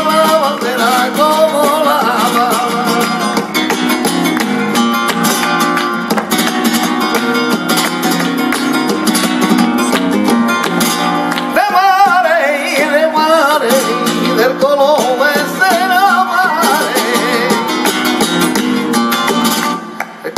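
Flamenco tangos: a flamenco guitar played with steady palmas (hand clapping), and a voice singing ornamented, wavering lines near the start and again from about twelve seconds in. The music dips briefly just before the end.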